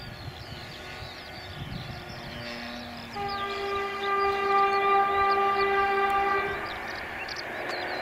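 OS Max engine of a radio-controlled Extra 300S aerobatic model plane running in flight, a steady engine tone that grows much louder from about three seconds in and eases off near the end.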